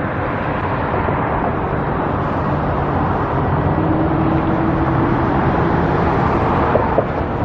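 Steady road traffic noise from cars passing on a busy street, with one vehicle's engine hum standing out for a few seconds in the middle.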